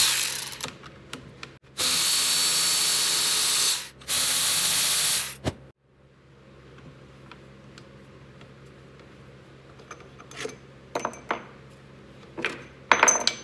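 Cordless electric ratchet running in two bursts of about two seconds each, spinning out the bolts on a differential's joint. Near the end there are a few small metallic clicks as the parts are handled.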